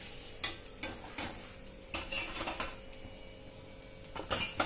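Steel wire-mesh skimmer clinking and tapping against a steel kadhai and a steel plate as a fried ball is lifted out of the oil and set down: a scatter of sharp metal clinks, the loudest cluster near the end.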